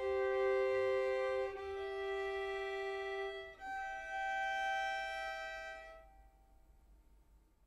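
Solo violin bowing slow, sustained double-stop chords, moving to a new chord about one and a half seconds in and again at about three and a half seconds; the last chord stops about six seconds in and its ring fades away.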